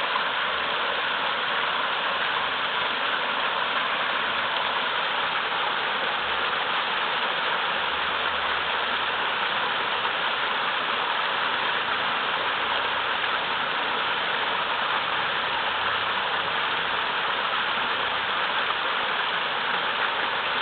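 Small mountain-river waterfall rushing fast over large rocks: a steady, even splashing rush of water.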